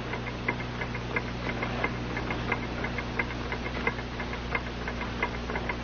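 Clock ticking steadily, about three ticks a second, the ticks alternating stronger and weaker, over a low steady hum.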